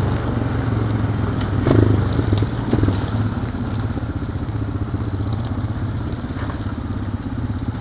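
Honda Recon ATV's single-cylinder four-stroke engine running steadily as it rides over dry grass and mud, with a few clattering knocks from the machine and brush between about two and three seconds in.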